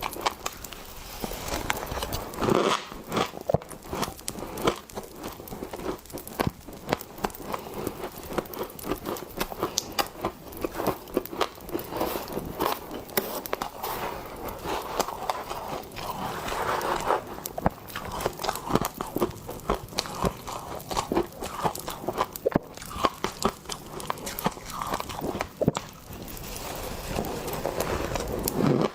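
Close-up biting and chewing of fresh humidifier frost, a continuous run of crisp crunches.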